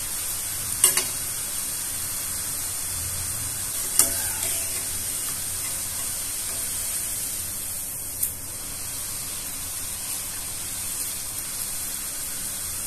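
Thin chickpea-flour sev strands deep-frying in medium-hot oil in a kadhai: a steady sizzle. A slotted steel spoon knocks sharply against the pan three times, about a second in, at four seconds and near eight seconds.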